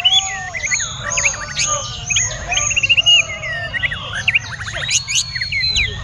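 White-rumped shamas singing: a rapid, nonstop run of varied whistles, slurred notes and fast trills, with several phrases overlapping as more than one bird sings at once.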